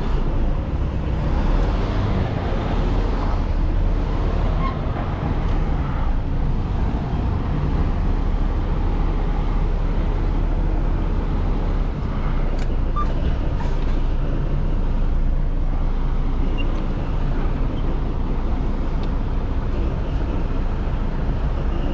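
Semi tractor's diesel engine running steadily at low speed, heard inside the cab as the truck creeps through the yard.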